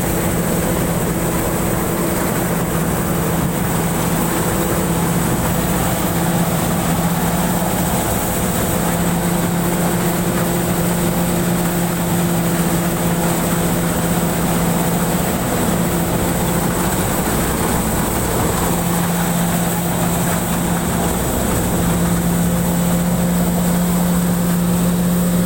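Pan Charoen Kan Chang rice combine harvester running steadily while harvesting, heard from the driver's seat: a continuous engine and machinery drone with a steady hum whose pitch wavers slightly.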